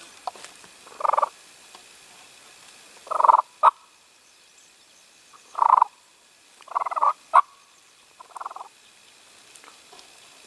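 Five short, raspy turkey calls spaced one to two seconds apart, with two sharp clicks among them.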